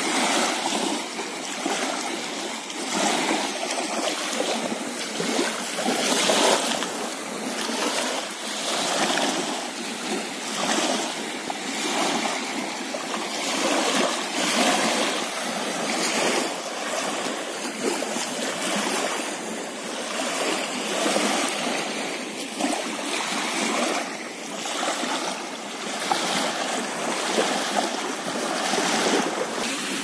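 Small sea waves lapping and washing up onto a sandy shore, a continuous rush of water that swells and fades every couple of seconds.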